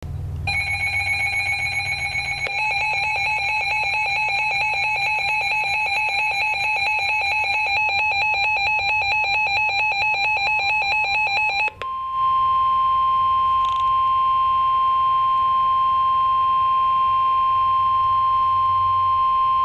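Emergency alert signal for a severe thunderstorm warning. A rapidly pulsing electronic alarm of several tones sounds for about twelve seconds, then breaks off briefly. It is followed by a single steady, high tone, the long attention tone of a National Weather Service warning.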